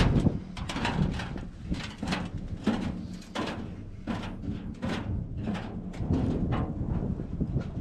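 Boots walking down the steel diamond-plate and wooden steps of a fire tower, an irregular run of knocks and clanks, a few each second.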